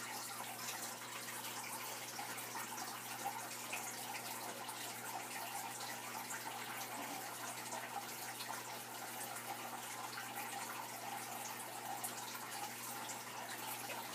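Steady trickle and splash of aquarium water, typical of a filter's return flow falling onto the surface, with fine drip-like ticks and a faint steady hum underneath.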